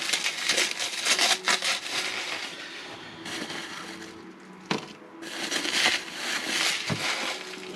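Plastic packaging rustling and crinkling, with light irregular clicks of small 3D-printed parts being handled.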